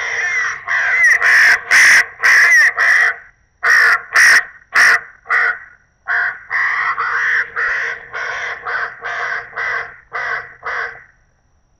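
Recorded crow caws played loud through a homemade electronic game call: an iPhone game-call app driving a mini amplifier and a 25-watt outdoor speaker. A run of caws is followed by a short pause about six seconds in, then a second, quicker series that stops shortly before the end.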